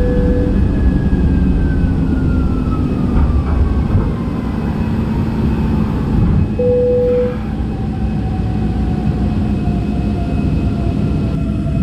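Airliner cabin noise just after takeoff: a loud steady rumble with a whine that falls slowly in pitch. Two short steady tones sound, one at the start and one about seven seconds in.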